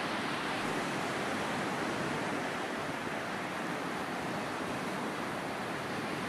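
Steady wash of Baltic Sea surf breaking on a sandy beach, an even rushing noise with no distinct strokes.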